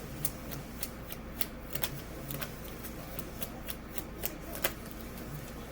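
Tarot cards being shuffled and handled: a string of light, irregular snaps and clicks.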